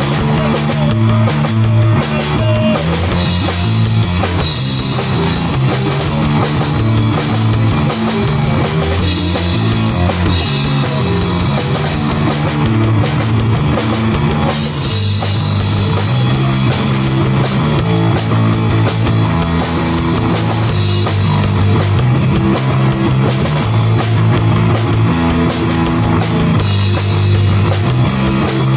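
A rock band playing a song live: drum kit, guitar and a low bass line that steps between notes.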